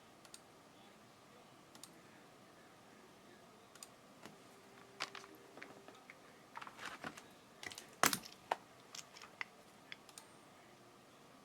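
Scattered faint clicks and taps, few at first and then coming thick and irregular, with one sharper click about eight seconds in.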